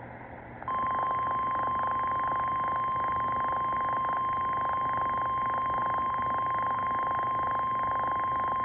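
NOAA Weather Radio warning alarm tone: a single steady 1050 Hz tone that starts just under a second in and holds unbroken, over faint radio hiss. It is the signal that a warning message is about to be broadcast.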